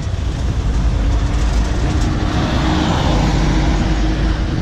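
4x4 tour vehicle driving: a steady engine and road rumble, with a faint steady whine coming in about a second in.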